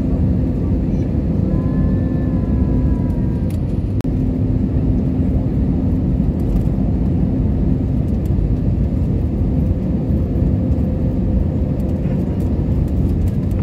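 Jet airliner cabin noise on the descent to landing: the engines and rushing air make a loud, steady noise with a constant low hum.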